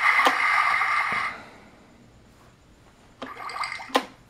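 Electronic sound effects from a Thomas & Friends Tidmouth Sheds toy playset's small speaker, set off as its lever is worked. One plays for about a second and a half, and a shorter one follows about three seconds in. Each is marked by a sharp plastic click.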